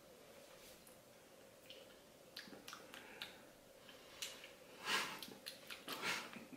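Faint crunching and clicking as a crunchy cookie is chewed, starting about two seconds in, with two louder breathy bursts near the end.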